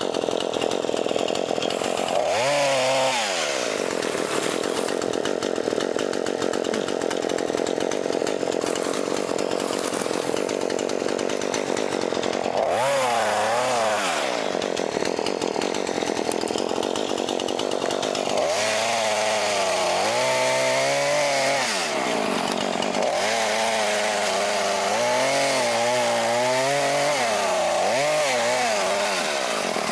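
Two-stroke chainsaw running throughout, revved up several times with its pitch rising and falling. The longest stretch, from about two-thirds of the way in to near the end, wavers as the saw works through tree limbs.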